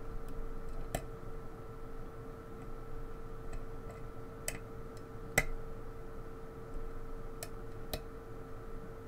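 Small, sharp metallic clicks and ticks, irregularly spaced, from a lock pick working the spring-loaded pins of a pin-tumbler lock held under tension; the loudest click comes about five and a half seconds in. A steady faint hum runs underneath.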